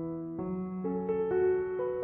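Background piano music, with a low note held under a melody that moves to a new note about every half second.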